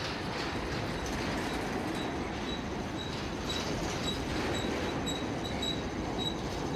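A freight train's cars roll past with a steady rumble. From about two seconds in come short, high wheel squeals, repeating roughly twice a second.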